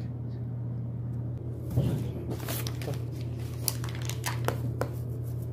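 Food packaging being handled and opened, with irregular crinkling and crackling from about two seconds in over a steady low hum.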